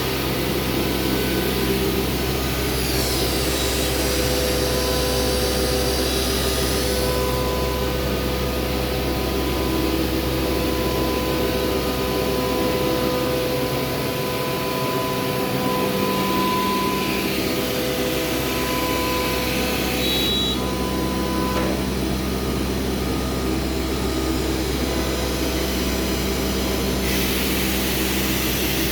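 CNC router milling MDF, a steady machine drone made of several constant hums. Higher whining tones glide up and down from about three to seven seconds in.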